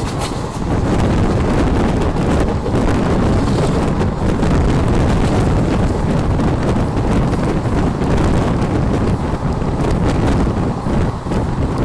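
Wind buffeting the microphone over the steady rumble of a passenger train running at speed.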